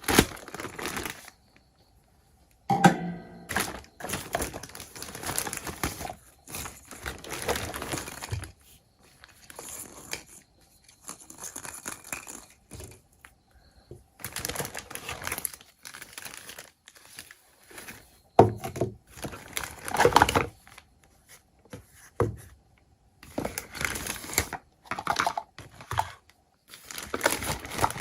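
Packaging crinkling and tearing in irregular bursts during the unboxing of a miniature toy kitchen set, with sharp clicks and knocks as small pieces are handled.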